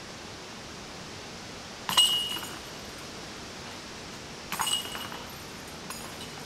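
Disc golf basket chains jingling as putts strike them, twice, about two and a half seconds apart, with a fainter clink near the end. A steady hiss runs underneath.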